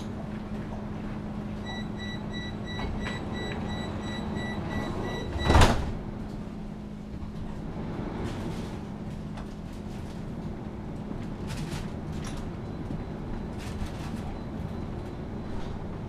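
Tram door-closing warning beeping rapidly and high for about four seconds, then the doors shutting with a loud thud, over the tram's steady electrical hum while it stands at the stop.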